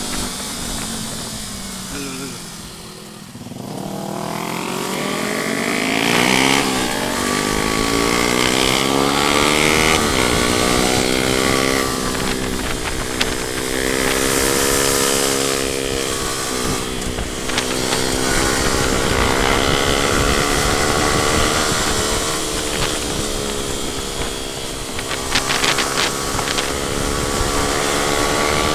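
Motorcycle engine under way: the revs fall away about two to three seconds in, then climb again and rise and fall repeatedly through the gears, with wind noise over it.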